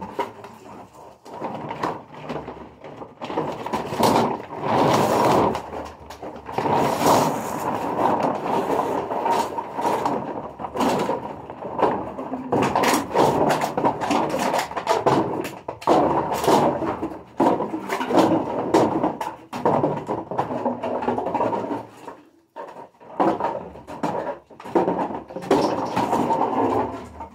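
Empty plastic drink bottles crinkling, crackling and clattering as they are handled and pressed down into a large woven sack: an irregular crunching with many sharp clicks, easing briefly near the end.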